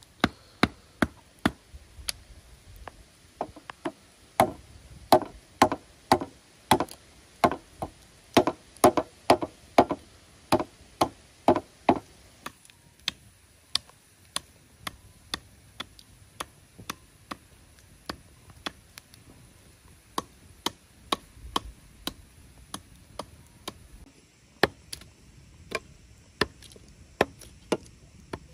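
Repeated sharp strikes of a hand tool on wood and bamboo, about two a second. Through the first half many strikes carry a ringing tone; after that the strikes come lighter and more scattered, with a brief pause near the end.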